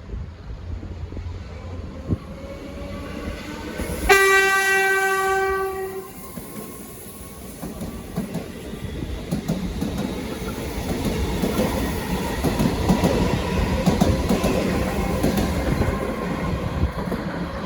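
Metro Trains Melbourne Comeng electric train sounding its horn: one steady single-note blast of about two seconds, about four seconds in. Then the train's rumble and the clatter of its wheels over rail joints build as it gets under way.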